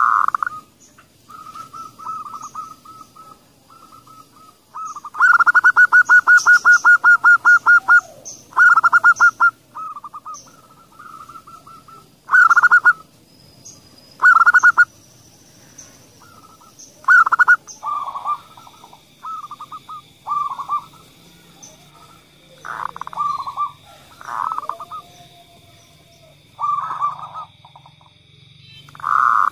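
Zebra dove (perkutut), a female by the recording's own account, giving repeated short cooing phrases around a fixed pitch. About five seconds in there is a fast stuttering trill of roughly seven notes a second, followed by separate coos. A faint steady high tone runs underneath from about two-thirds of the way through.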